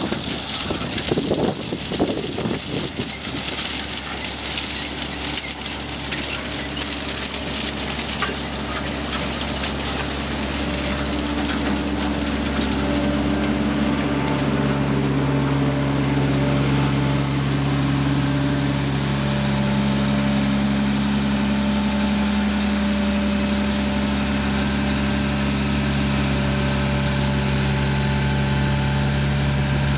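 Grimme Maxtron self-propelled sugar beet harvester at work, its diesel engine running steadily. From about halfway the engine's hum comes through more strongly and a little louder as the machine passes close by and moves off.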